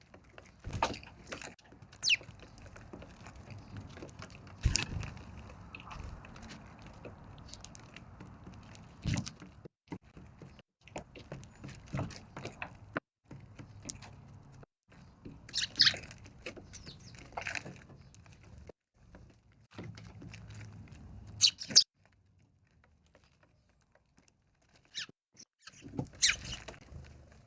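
Eurasian tree sparrows feeding on sponge cake: irregular light pecking and hopping taps. A few louder, brief sharp sounds come in the second half, then a short lull near the end.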